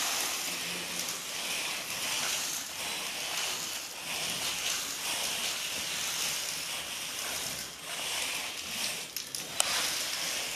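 Loose black firework granules hissing and rustling as hands sweep them back and forth across a tray of paper tubes, swelling and easing with each stroke, with a sharp tick near the end.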